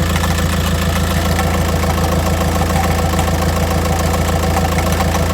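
2006 Volkswagen Jetta TDI's 1.9-litre four-cylinder Pumpe Düse diesel (BRM) idling steadily with the clutch engaged, carrying a clunking rattle that appears only once the clutch pedal is released.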